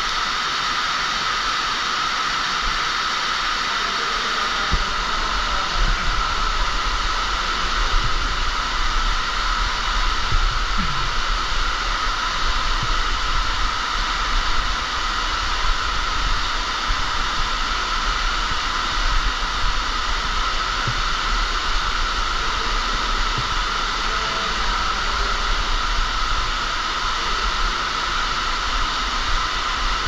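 Underground waterfall pouring down a mine shaft, a steady rushing hiss that doesn't let up, with a few faint knocks now and then.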